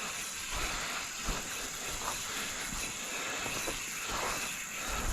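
Steady rush of flowing creek water, with a few soft knocks and splashes.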